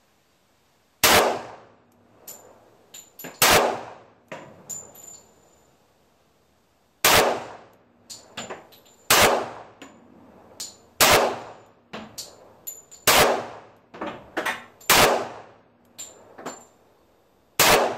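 Colt 1911 .45 ACP pistol fired slowly in aimed single shots, eight in all, roughly two seconds apart and unevenly spaced. Each shot is a sharp, loud report with a short ringing tail, and fainter clinks and cracks fall between the shots.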